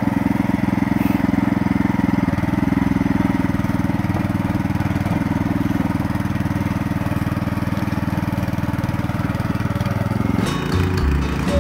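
Small gasoline engine of a tracked power wheelbarrow running steadily at a fast, even rate. About ten seconds in the sound shifts to a lower, rougher note.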